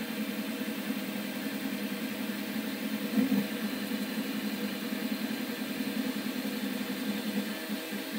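CoreXY 3D printer running a print: the stepper motors drive the toolhead in quick moves, giving a steady whirring hum that wavers constantly with a few steady higher tones over it. There is a brief louder burst about three seconds in.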